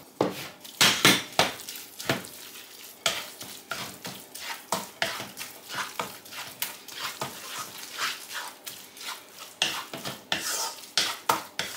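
Wooden spatula stirring cooked spinach into beaten egg in a nonstick wok, with many short scrapes and knocks against the pan and a wet, squelching mix.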